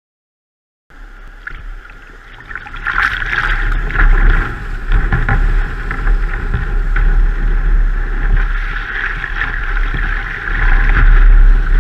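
Breaking surf and whitewater rushing and splashing around the bow of a sea kayak, picked up close by a deck-mounted camera, with a heavy low rumble of wind and water buffeting the microphone. It comes in suddenly about a second in and stays loud.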